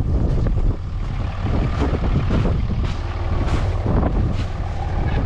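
Strong wind buffeting the microphone: a loud, steady low rumble with irregular gusts.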